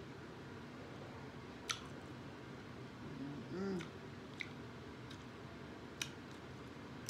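A person eating steak with a fork: a handful of short, sharp mouth clicks and wet chewing sounds, with a brief hummed "mm" of enjoyment about three seconds in.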